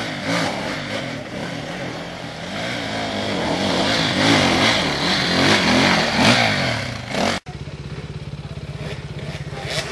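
Enduro dirt bike engine revving hard, its pitch rising and falling as the bike struggles, stuck in mud on a steep climb. About seven seconds in it cuts suddenly to another dirt bike's engine running at steady low revs.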